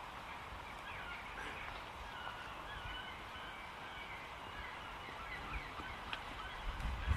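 Scattered short bird calls over a faint outdoor hiss. A low rumble rises near the end.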